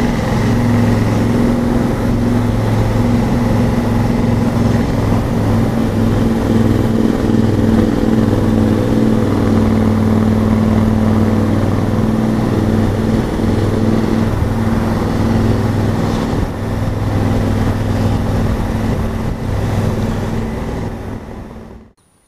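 Honda Africa Twin motorcycle engine running steadily at cruising speed, with wind rushing past. The sound cuts off suddenly near the end.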